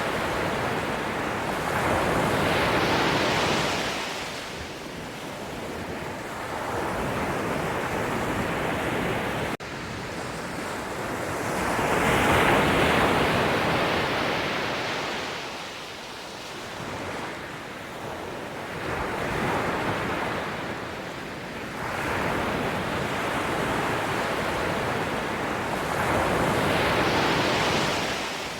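Ocean surf: waves breaking and washing in, swelling and fading every several seconds, with a momentary dropout in the sound about ten seconds in.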